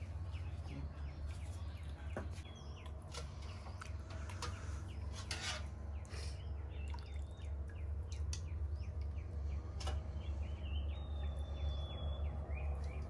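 A metal ladle scoops rice porridge from a metal pot into a bowl, with a few sharp clinks against the pot. Birds chirp in the background over a steady low rumble.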